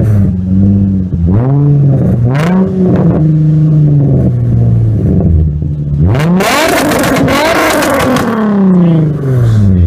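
Nissan 350Z's 3.5-litre V6 revving through a Soho single-exit exhaust with resonated test pipes and a resonated Y-pipe. The car is stationary. Three quick blips come in the first few seconds, then one long rev about six seconds in climbs high and falls back.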